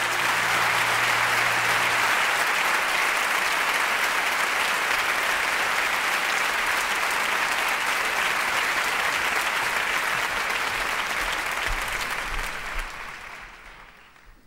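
Concert audience applauding, with the last guitar note still ringing under it for the first two seconds; the applause dies away near the end.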